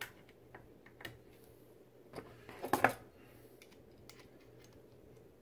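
Light clicks and taps of a brass .223 case and a digital caliper with a bullet comparator being handled, spaced about a second apart, with a short run of louder clicks about halfway through.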